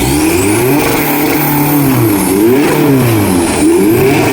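Off-road 4x4 competition vehicle's engine revving hard, its pitch rising and falling again and again in quick sweeps as the throttle is worked.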